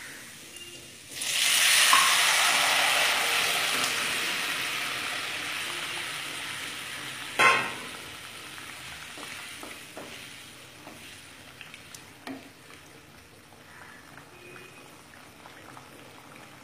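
Hot ghee tempered with cumin, bay leaves and ginger sizzling loudly as bottle-gourd and potato curry is poured into it, starting suddenly about a second in and fading over several seconds. A sharp knock comes at about seven and a half seconds, then a faint, steady sizzle with small clicks.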